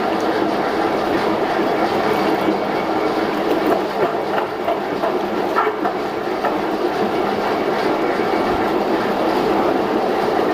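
MDM meat machine running steadily as it works frozen meat into a paste: a continuous mechanical noise with a few faint clicks.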